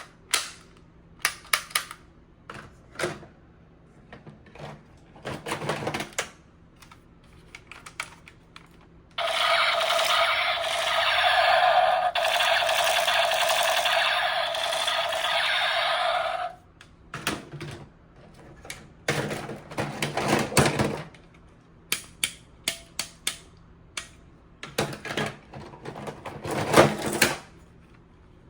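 Plastic toy gun being handled and worked: scattered sharp clicks and short rattles, with a steady buzzing whir lasting about seven seconds in the middle.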